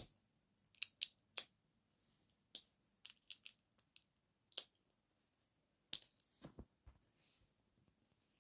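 Silicone pop-it fidget toy bubbles being pressed, giving a dozen or so small sharp pops at an uneven pace, a few with a soft thud under them.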